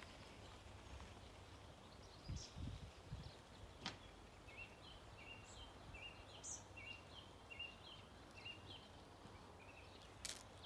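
Near-silent outdoor ambience in which a small bird chirps repeatedly, about two short chirps a second, through the second half. A few low rumbles come early on the microphone, and there are two sharp clicks.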